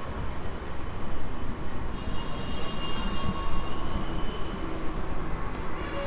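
Steady low rumbling background noise, with faint high tones from about two to four seconds in.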